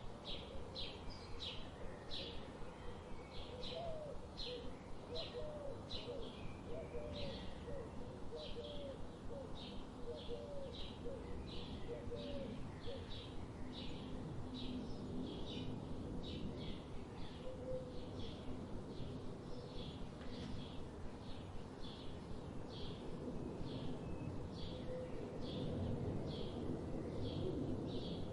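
Birds chirping: a steady series of short, high chirps, a little under two a second, with a second bird's lower, curling calls in the first half.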